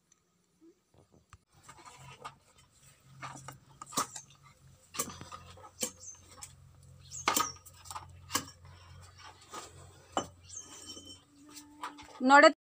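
Clinks and knocks of a steel pot and a plastic lid being handled: a handful of sharp taps about a second apart over a faint low hum. Just before the end comes a short, loud squeal that wavers upward in pitch.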